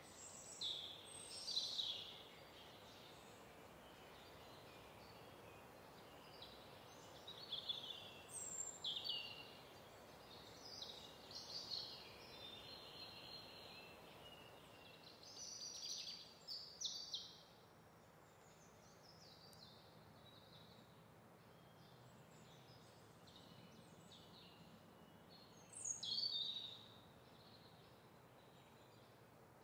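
Faint birdsong: scattered clusters of short, high chirps and twitters from small birds over a quiet, steady background hiss, with a louder burst of calls about three-quarters of the way through.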